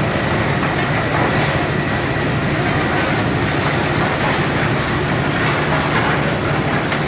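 Coal-upgrading machine running steadily: a loud, even mechanical noise with a constant low hum underneath.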